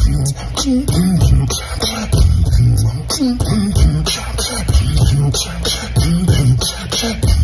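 Human beatboxing: a steady hip-hop beat of mouth-made drum sounds, laid over low hummed bass notes that bend in pitch.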